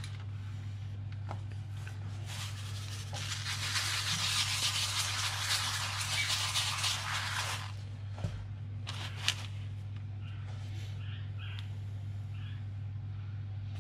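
Salt poured from a bag onto newspaper: a steady hissing patter for about five seconds, starting about two seconds in, followed by a couple of sharp clicks, over a steady low hum.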